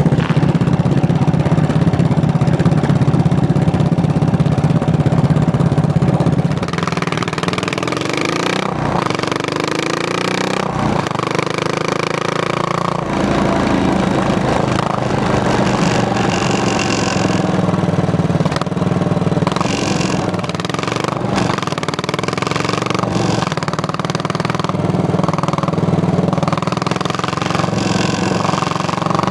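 Single-cylinder motorcycle engine running steadily, then about six seconds in rising and falling in pitch as the bike accelerates and changes gear, settling into steady riding.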